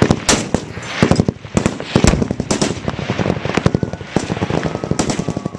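Machine-gun fire in rapid bursts, the shots coming irregularly and overlapping, easing off near the end.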